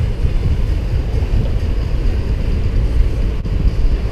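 Wind buffeting the microphone of a camera on a moving motor boat: a loud, steady, fluttering low rumble.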